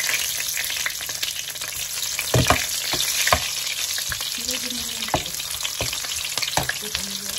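Whole garlic cloves sizzling in hot olive oil, stirred with a slotted metal spoon that knocks against the pan several times.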